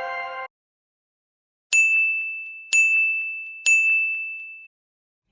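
Three identical high, bell-like dings about a second apart, each struck sharply and ringing away, with dead silence around them. Just before them, a held chime chord cuts off about half a second in.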